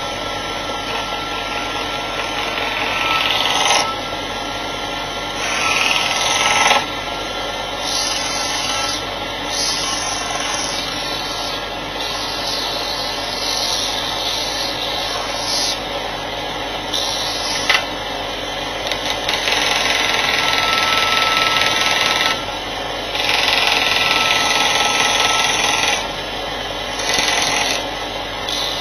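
Workzone combination bench grinder and sander running steadily with a faint whine. It is interrupted again and again by loud rasping stretches of one to several seconds as a workpiece is pressed against the abrasive.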